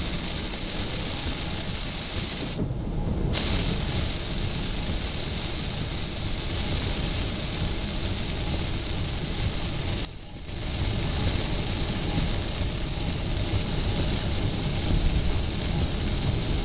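Steady rush of heavy rain and wet-road tyre noise inside a car driving at highway speed through a thunderstorm. The noise briefly dips about ten seconds in.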